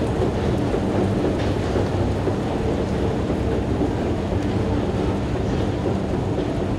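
Escalator running: a steady low rumble with a constant mechanical hum.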